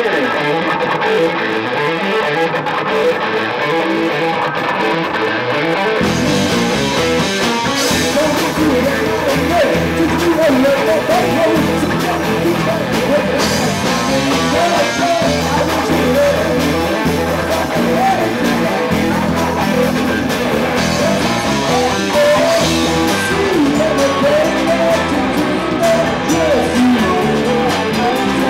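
Live rock band playing an original song: electric guitar opens, and bass and drums come in about six seconds in for the full band sound.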